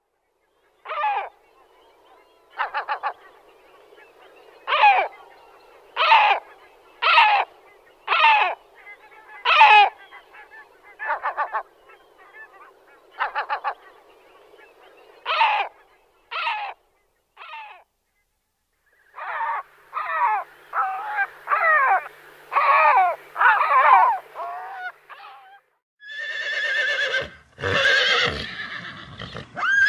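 Black-headed gull calling: short harsh cries, about a dozen spaced a second or so apart, then a quicker run of calls. About 26 seconds in, a horse neighs loudly.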